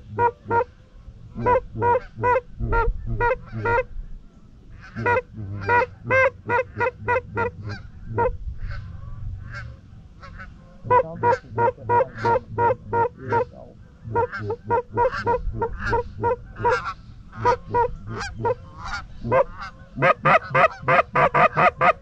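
Hand-blown goose calls honking and clucking in rapid strings of about four to five notes a second, all on one pitch, with short breaks between strings: hunters calling to a flock of Canada geese to bring it in.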